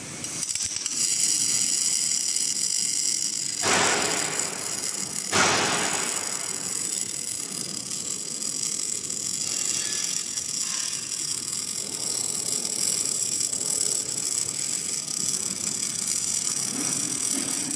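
Automatic arc-welding torch striking and burning along a steel fan-casing seam: a steady, dense crackle of the arc starts about half a second in. Two louder surges of hiss come a few seconds in.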